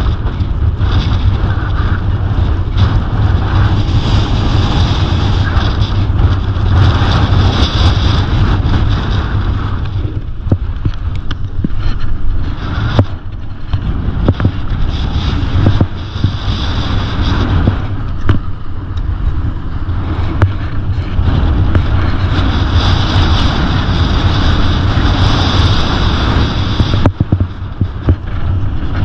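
Wind buffeting the microphone of a skier's moving camera, a loud, steady rumble. Over it, skis scrape and hiss across packed snow in long swells that come and go with the turns.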